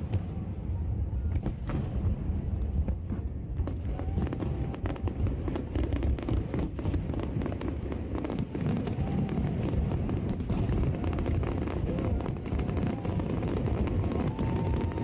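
Fireworks going off: a rapid, irregular run of bangs and crackles over a steady low rumble.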